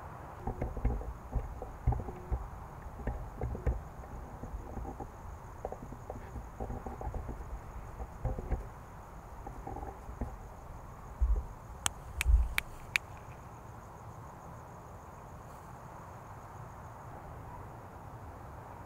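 Night ambience with a faint, steady high-pitched insect trill. Scattered low thumps and knocks come through the first half, and a few sharp clicks with two heavier thumps about two-thirds of the way in are the loudest sounds.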